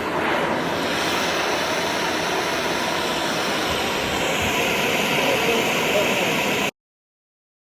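Gas torch flame running with a steady roaring hiss while heating a seized bolt red hot to free it. It cuts off suddenly near the end.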